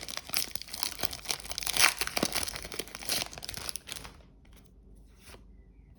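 Foil wrapper of a Pokémon booster pack crinkling and tearing as it is opened by hand. The crinkling stops about four seconds in, leaving only a few faint ticks.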